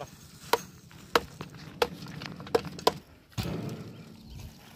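A series of about five sharp knocks, roughly two-thirds of a second apart, each with a short hollow ring, followed about three and a half seconds in by a brief stretch of rougher scraping noise.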